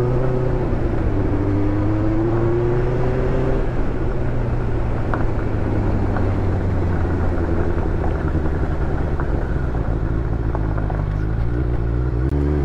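Benelli 600GT's inline-four engine running through its exhaust while riding, the pitch rising steadily over the first few seconds as it pulls, then holding at a steadier cruise.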